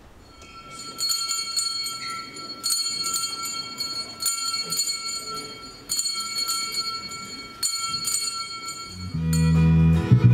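Small bells shaken in repeated bursts of ringing, a fresh shake about every one and a half to two seconds. Near the end a string band of guitars and violin strikes up, louder than the bells.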